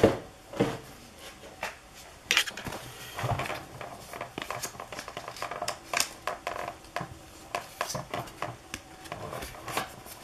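A Pokémon trading card being worked into a plastic card protector by hand: scattered rustles, taps and small clicks of card and plastic handling.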